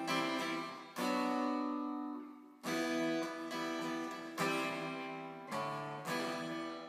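Background music: acoustic guitar chords strummed one at a time, about five in all, each left to ring and die away.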